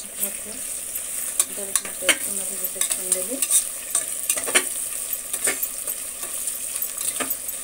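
Onions, green chillies and ginger-garlic paste sizzling in hot oil in a pressure cooker while being stirred, the spoon scraping and clicking against the pot every second or so.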